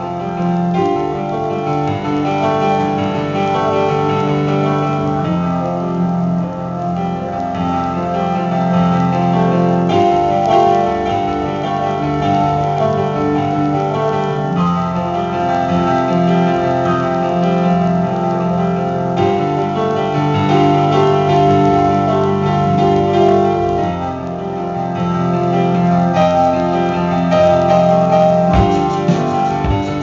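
Live band music led by keyboards with a piano sound, playing held notes and chords over a full band.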